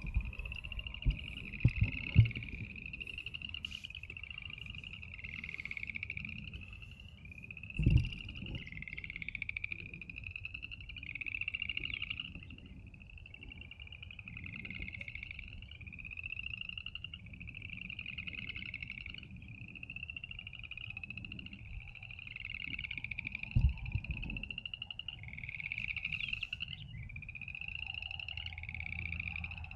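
A spring breeding chorus of frogs: many overlapping trilling calls, each about a second long, repeating steadily without pause. A few low thumps break in, the loudest about eight seconds in.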